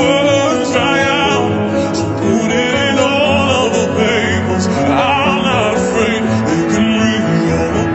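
Music: a singing voice holding long notes with heavy vibrato, in an operatic style, over sustained accompaniment.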